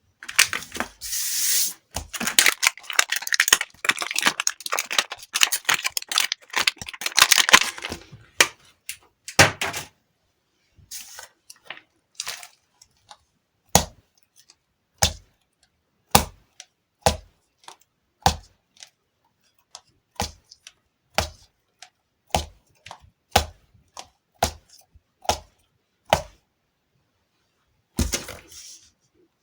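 Sticky squishy balls squeezed and pulled apart by hand, the tacky surface crackling and peeling for several seconds. Then comes a run of single sharp snaps, about one a second, and a short crackle near the end.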